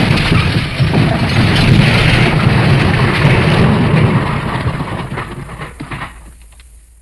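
MGM elephant smash crash sound effect: a sudden, loud, dense rumbling crash with crackling debris that holds for about five seconds, then fades out near the end.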